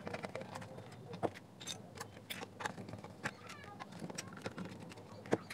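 Small screwdriver turning out the motherboard screws in a plastic speaker housing, making irregular light clicks and ticks as the tip works the screw heads.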